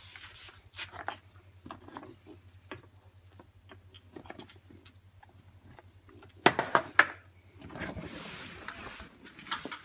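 A plastic hand air pump and its hose being picked up and handled: irregular clicks and knocks, with two loud knocks about six and a half seconds in. A rustle lasting about a second follows.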